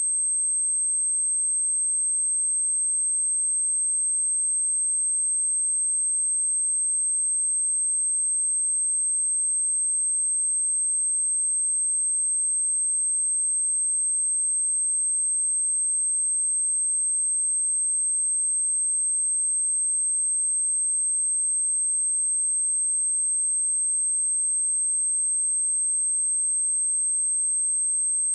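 A steady, unbroken high-pitched 8344 Hz sine-wave test tone, a single pure tone held at a constant level. It is the kind of tone played to test speakers or to shake water and dust out of them.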